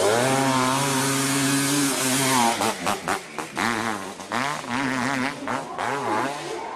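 Dirt bike engine running at high revs at a steady pitch with a loud hiss over it. After about two and a half seconds the throttle is worked on and off, so the revs and loudness rise and fall several times.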